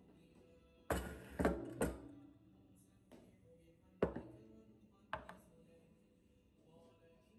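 Decor items, pillar candles and a glass candle holder, set down and moved about on a wooden tabletop: three quick knocks about a second in, then single knocks at about four and five seconds. Soft background music underneath.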